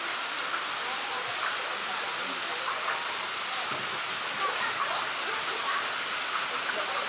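Heavy downpour with hail, a steady hiss of drops and hailstones hitting the ground and foliage.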